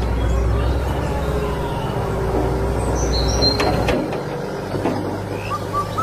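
Excavator working: a steady low machine drone that changes and thins about four seconds in, with a few short high chirps and light clicks around three to four seconds in.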